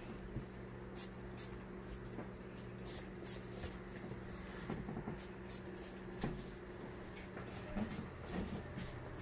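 Gloved hands handling a subwoofer cone and basket, making soft irregular rustles and small clicks with a few light knocks, over a steady low hum.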